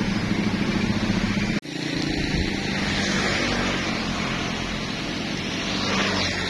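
Motor vehicle running with steady road and wind noise and a low engine hum, briefly cut off about a second and a half in.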